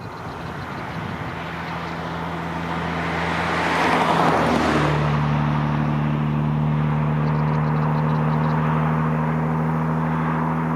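Engine noise of a firefighting aircraft passing close: a broad rush that peaks about four seconds in, then a strong, steady low hum whose pitch drops a little just after the loudest point.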